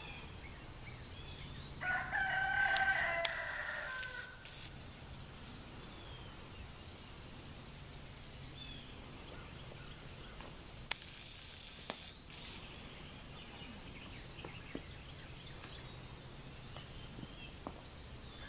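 A rooster crows once, about two seconds in. Afterwards there are a few faint sharp clicks.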